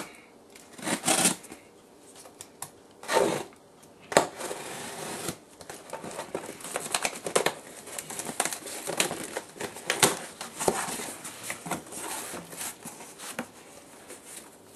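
A cardboard shipping box being opened with a box cutter: packing tape slit and torn off in a few short tearing noises, then many small scratches, clicks and rustles of the cardboard flaps and packing being pulled open.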